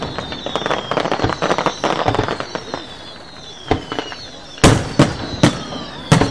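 Aerial fireworks display: a rapid run of crackling cracks, then several louder shell bursts about one a second near the end, with whistles falling in pitch over them.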